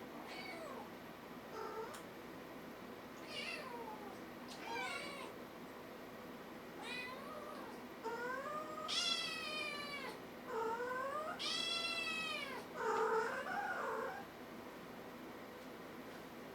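Kitten meowing repeatedly: high-pitched calls that rise and fall, short at first and then longer and louder, the longest lasting about two seconds.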